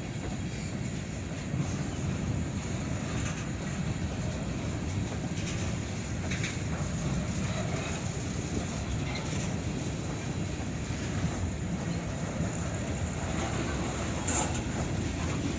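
Freight cars of a long train rolling past: a steady low rumble of wheels on rail, with a few faint clicks.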